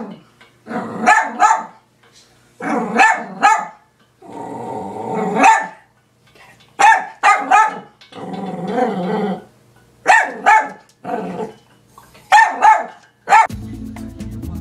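Small dachshund-type dog barking in quick bursts of two to four yaps, with longer growls in between. Music starts near the end.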